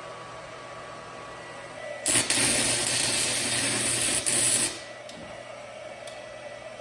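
Stick welding arc crackling and hissing as a tack weld is struck on a metal fireplace grate. The arc strikes about two seconds in, falters briefly once, and breaks off after about two and a half seconds.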